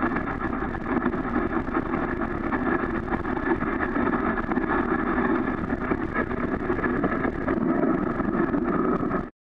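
Dog sled running over a snow trail: a steady rushing scrape of the runners on snow, with wind buffeting the camera housing. It cuts off suddenly near the end.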